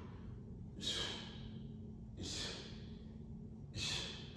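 A man's heavy breathing from the exertion of ab exercises: three forceful breaths, about a second and a half apart.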